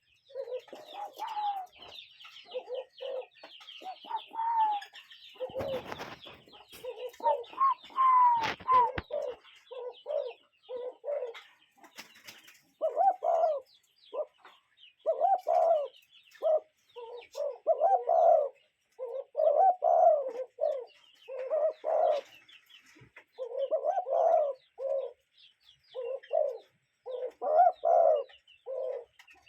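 Birds calling with short, low hooting notes, cuckoo- or dove-like coos, in clusters about every second. Higher chirps of smaller birds sound through the first third. There are a couple of louder rustling bursts around six and eight seconds in.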